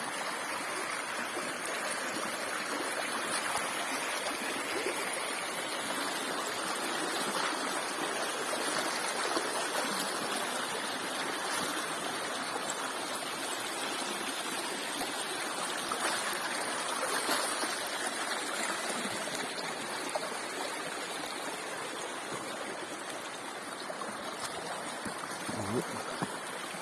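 Mountain river rushing over rocks: a steady wash of flowing water.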